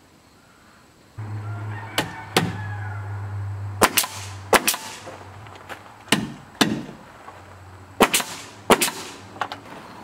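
Pneumatic nail gun firing into wooden trim boards: about a dozen sharp shots, singly and in quick pairs. A steady low machine hum starts about a second in and fades out in the second half.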